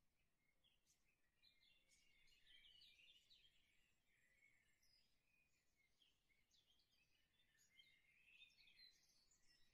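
Faint scratching of a pencil on drawing paper in short, irregular sketching strokes.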